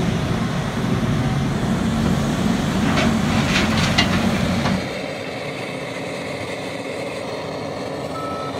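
Heavy diesel mining machinery running with a deep engine note, with a few short high squeals about three to four seconds in. About five seconds in the sound cuts to a quieter machine background, and near the end a reversing alarm beeps at an even pace.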